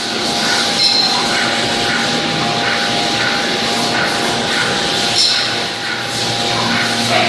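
CNC machining centers running: a steady machine noise with a held whine and short, repeated metallic clinks.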